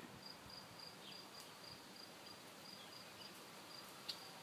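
Faint insect chirping, a high pulse repeating about four times a second, with a single short click near the end.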